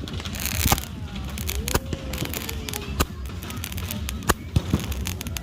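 Fireworks and firecrackers going off in irregular sharp bangs and pops, with a hissing burst about half a second in.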